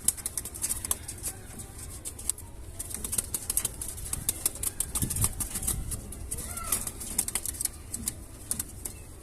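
Pigeons fluttering and rustling their wings: a steady run of quick, sharp clicks and flaps, with one short rising squeak about two-thirds of the way through.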